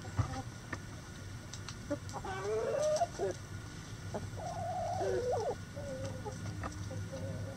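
Backyard chickens calling: two drawn-out calls about two and four-and-a-half seconds in, with fainter short clucks between.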